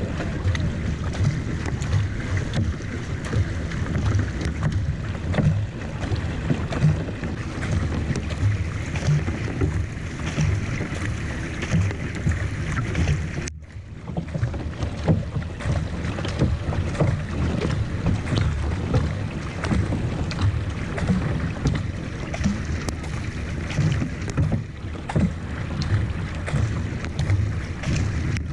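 Paddle strokes of a racing kayak, the blades splashing in and out of the water, with water rushing along the hull and wind buffeting the bow-mounted camera's microphone. The sound cuts out for a moment about halfway through.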